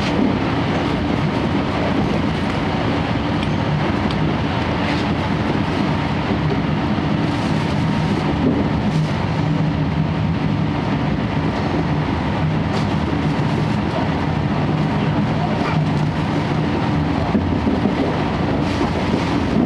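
Inside a moving 12-series passenger coach (SuHaFu 12): steady rumble of the wheels on the rails, with the drone of the coach's underfloor diesel generator engine running underneath and a few faint clicks.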